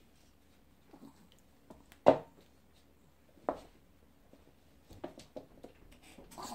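A kitten's paws thumping and scrabbling on a laminate floor as it leaps and rolls after a feather wand toy: one sharp thump about two seconds in, a second about a second and a half later, then a quick run of light taps and scuffs near the end.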